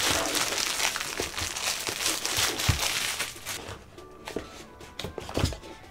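Clear plastic shrink-wrap crinkling and crumpling as it is pulled off a smartphone's cardboard box. After about three and a half seconds the crinkling stops and a few light knocks of the box follow, over quiet background music.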